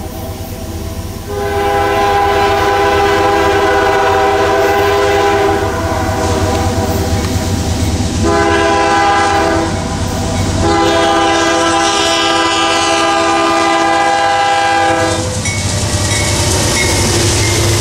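Diesel locomotive air horn, several notes sounding together, blowing as the train nears a grade crossing: a long blast, a shorter one, then another long one. Under it runs the steady low rumble of the approaching train, which is passing close by near the end.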